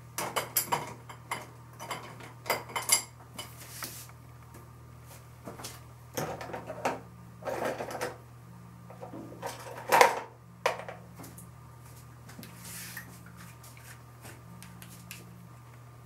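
Small hard objects being handled, clattering and knocking in irregular clusters, with the loudest knock about ten seconds in. A steady low hum sits underneath.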